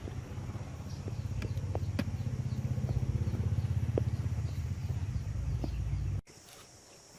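A low, fast-pulsing engine-like rumble with a few sharp clicks over it, cut off suddenly about six seconds in.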